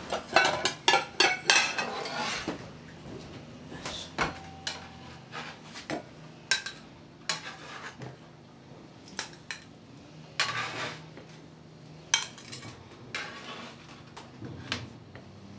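Plates and cutlery clattering on a kitchen counter: a quick run of clinks and knocks in the first couple of seconds, then scattered single knocks.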